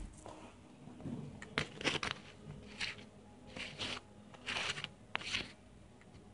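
Cat on catnip clawing and biting at a sisal-rope scratching post: a string of short, irregular scratchy rasps.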